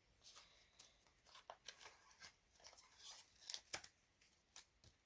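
Faint, irregular clicks and rustles of a plastic CD case and its paper insert being handled and turned over, the sharpest click a little under four seconds in.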